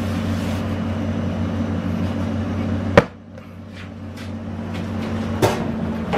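Steady low mechanical hum of kitchen machinery, broken by a single sharp knock about three seconds in. After the knock the hum drops away and slowly builds back. A click comes near the end.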